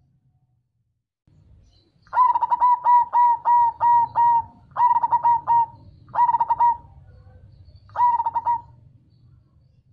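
Zebra dove of the black cemani variety (perkutut cemani) singing. After about two seconds of quiet, it gives a quick run of about eight short cooing notes, then three shorter cooing phrases with pauses between them.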